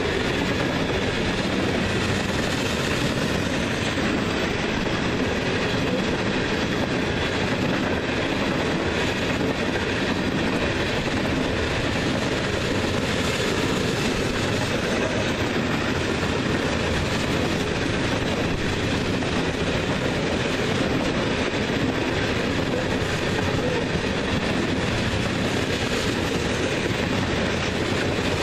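Grain train of covered hopper cars rolling past at steady speed: a continuous rumble and rattle of steel wheels on the rails.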